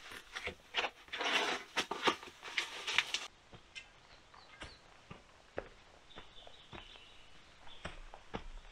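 Crackling and rustling of foam insulation being pulled away from a log roof. After a sudden change, soft footsteps climb through dry leaf litter, with a few faint high chirps.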